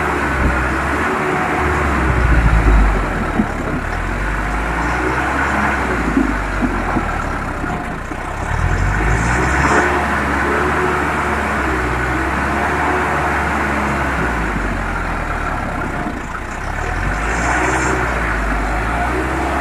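Sonalika tractor's diesel engine running steadily under load as the tractor climbs a steep, rocky track, a little louder a couple of seconds in and again near the middle.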